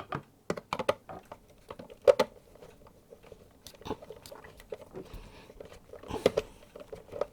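Screw terminals being tightened down on crimped wire ferrules: irregular small clicks and creaky scraping as the tool turns the clamp screws, the loudest click about two seconds in.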